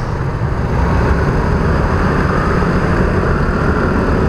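Motor scooter pulling away from a standstill in traffic: engine and wind on the microphone make a steady low rumble that grows louder about a second in.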